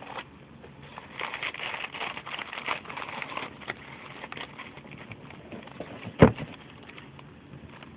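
Close crackling and rustling, loudest for a few seconds from about a second in, then a single sharp thump a little after six seconds in.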